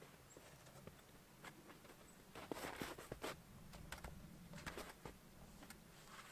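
Faint light knocks and scrapes of a birch log being handled and set on wooden sawhorses, with a few louder knocks about two and a half to three and a half seconds in.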